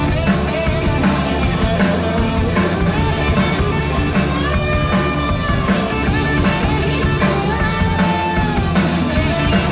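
Live rock band playing: a drum kit and electric guitar at full volume, with held lead notes that bend in pitch partway through.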